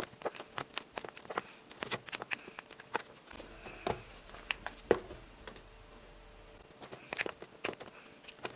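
Irregular clicks and taps of small hard pieces being handled, several a second, thinning out in a short lull past the middle before picking up again near the end.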